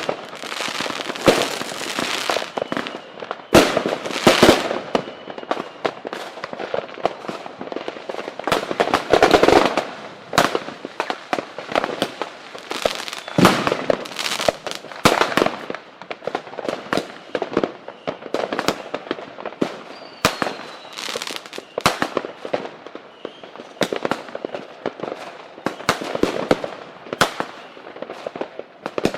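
Fireworks and firecrackers going off: a dense, irregular run of bangs and crackling pops throughout, with a few faint whistles.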